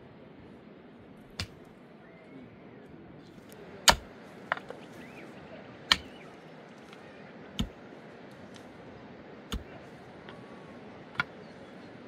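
Long-handled pick striking into earth as a pit is dug by hand, with one sharp strike about every two seconds.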